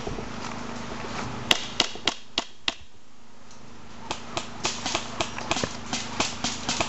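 Loose weight on a Hague MMC camera steadicam knocking and clicking as the rig moves, in irregular sharp knocks a few a second. It pauses for about a second in the middle and then comes back faster.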